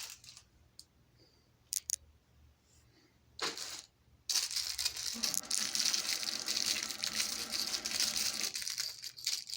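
Plastic packaging being handled: a few light clicks and a short rustle, then about five seconds of continuous crinkling and rustling.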